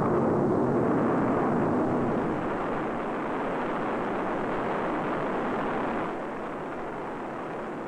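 Eight-engine Saturn booster stage, its H-1 kerosene–liquid oxygen rocket engines firing together in a static test stand. The engines make a loud, steady, unified rushing noise that eases slightly about two and a half seconds in and again about six seconds in.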